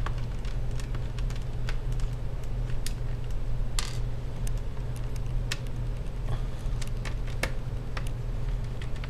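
Scattered light clicks and taps of hands and a small screwdriver working the plastic screen bezel of a Toshiba Satellite laptop, over a steady low hum.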